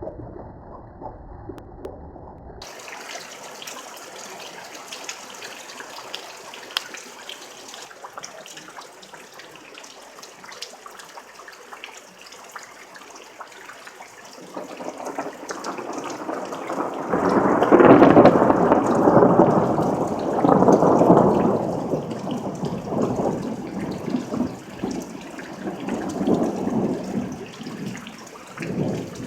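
Thunderstorm: steady rain hiss, then about halfway a long roll of thunder builds up. It peaks a few seconds later and rumbles on in several swells to the end.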